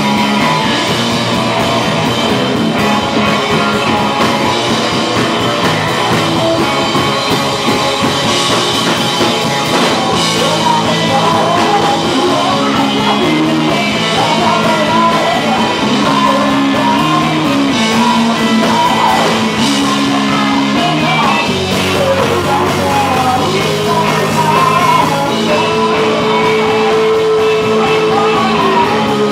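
Rock band playing live: drum kit, electric guitar and a singer's voice, loud and continuous.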